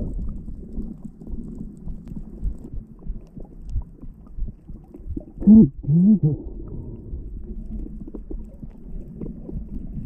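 Muffled underwater noise: a low rumbling wash of water with scattered faint clicks. About halfway through come two short, muffled pitched sounds, each rising and then falling.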